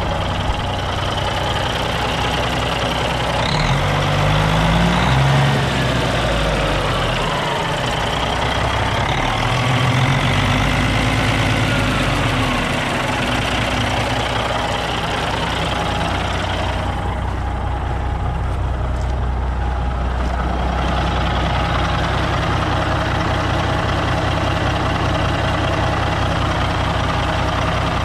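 Diesel engine of a 1992 Ford LTL9000 dump truck running. It is revved up and let back down twice in the first dozen seconds or so, then settles to a steady idle.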